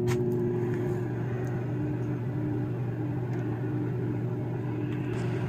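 New microwave oven running on a first test heat of water: a steady electrical hum with fan noise and no change in tone.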